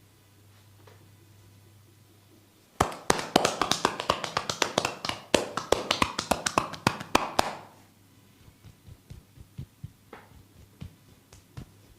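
A masseur's hands rapidly tapping and slapping on a client's body in percussive massage strokes. After a quiet start, a run of fast taps about six a second lasts some five seconds, then lighter, scattered taps follow.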